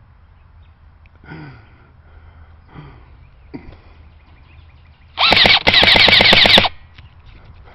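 Airsoft gun firing on full auto: a short burst, then a longer burst of rapid shots, about a second and a half in all, starting a little over five seconds in.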